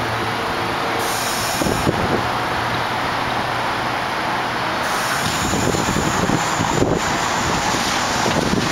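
R62A subway train running on elevated track as it passes and pulls away: a steady rumble of steel wheels on rails with some motor hum.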